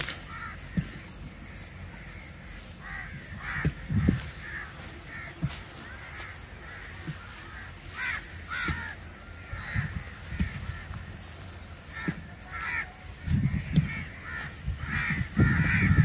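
A flock of birds calling with many short, overlapping cries scattered throughout. Low rumbling on the microphone builds toward the end.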